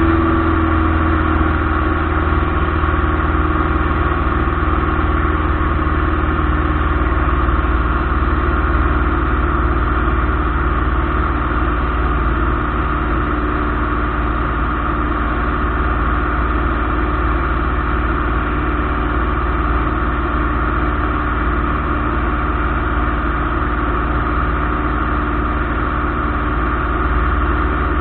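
Light aircraft's piston engine running steadily at constant power, an even drone with no change in pitch.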